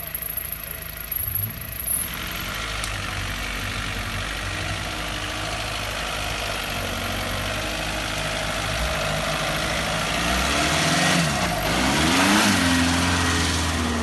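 Off-road buggy's engine running steadily at low revs as it crawls, then revving up and down several times, louder, near the end.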